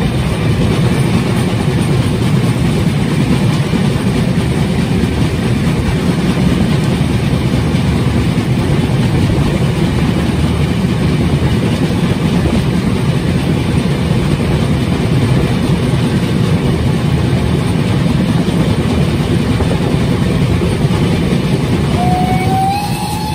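Steady running noise of a train hauled by steam tank locomotive 78 468, a Prussian T 18, rumbling across a viaduct. Near the end a whistle starts, rising slightly in pitch and then holding.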